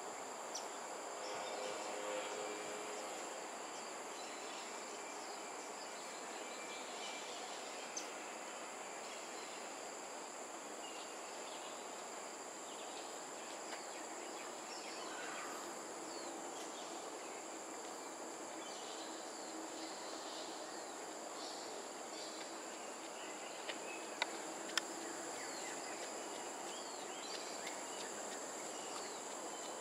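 Steady high-pitched insect drone over an even wash of background noise, with scattered short chirps throughout. A few sharp clicks come about eight seconds in and three close together near the end.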